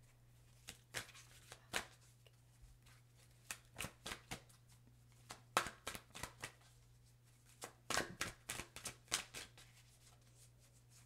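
A large Wisdom of the Oracle card deck shuffled by hand, a faint run of soft, irregular card flicks and taps that come in clusters.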